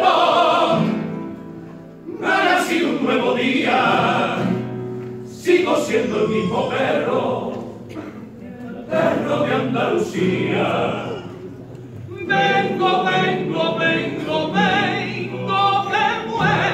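Carnival comparsa chorus singing in harmony from the stage, in long phrases with short breaks between them.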